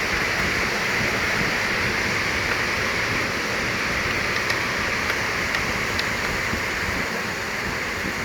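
Steady rushing hiss with a few faint small clicks about halfway through.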